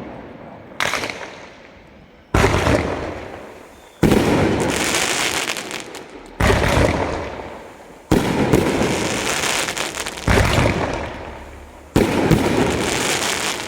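Fireworks display: aerial shells bursting with loud bangs about every two seconds, seven in all, each dying away in a rumble and crackle.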